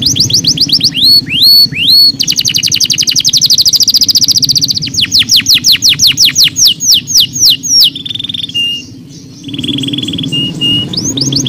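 Domestic canary singing a continuous song of fast rolling trills, rapid runs of repeated downward-sweeping notes. A few held, steady whistled notes come about two-thirds through, then the trills start again.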